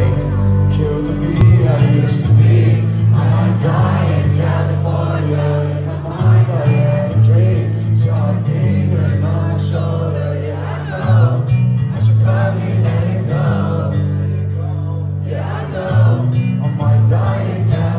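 Live concert music heard from within the audience: a male singer's voice through the PA over a sustained, bass-heavy synth backing.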